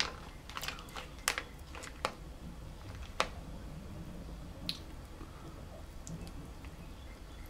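Scattered sharp clicks and soft squishes of snow crab shell and a lemon wedge being handled and squeezed by hand, with most of the clicks in the first five seconds.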